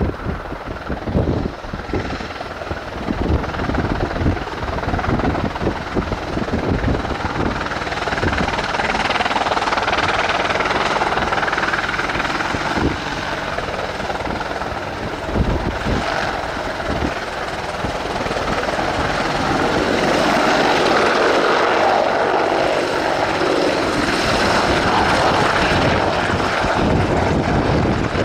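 AH-64E Apache attack helicopter in flight, its rotor and turbine noise building and loudest in the second half. Irregular buffeting thumps run through the first several seconds.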